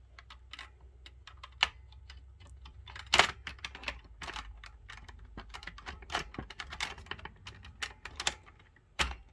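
Irregular clicks and knocks of 3D-printed plastic Enigma rotors and their holder as the rotor stack is wrestled out of the machine by hand, with the loudest knock about three seconds in.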